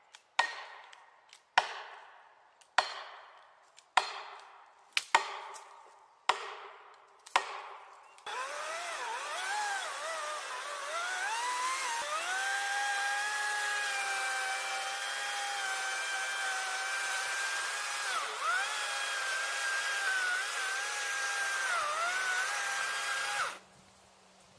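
About eight sharp axe blows, roughly one a second, then a Parkside battery chainsaw's electric motor whines up to speed and cuts steadily into a tree trunk, its pitch dipping briefly as the chain is loaded, before cutting off suddenly near the end.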